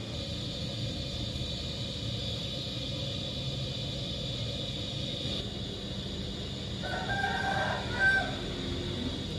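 A rooster crows once, about seven seconds in, a single call of roughly a second and a half. Under it runs a steady low rumble and hiss.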